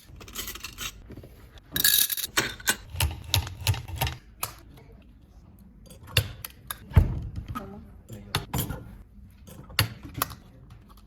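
Irregular clicks, taps and knocks of small parts being handled and set in a fridge-magnet maker press. There is a brief rustling burst about two seconds in and a heavier thump about seven seconds in.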